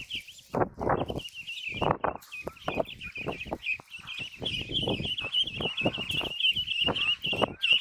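A flock of ducklings peeping constantly, many high rapid peeps overlapping, over irregular soft thumps and patters.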